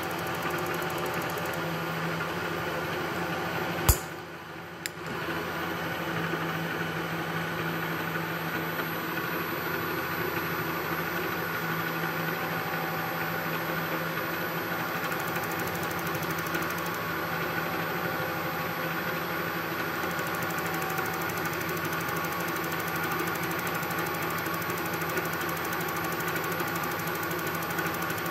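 Bridgeport milling machine spindle running steadily with an edge finder chucked, a steady mechanical hum made of several tones. A sharp click comes about four seconds in, then the sound drops briefly for about a second before the steady running resumes.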